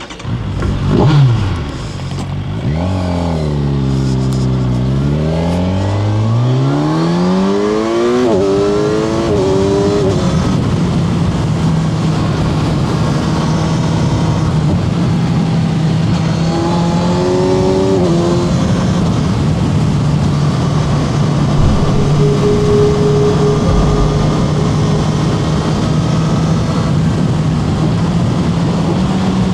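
Kawasaki Z1100 SE's air-cooled inline-four engine. The pitch drops, then climbs, shifting up in quick steps as the bike accelerates through the gears. After about ten seconds it settles into a steady drone at an even speed.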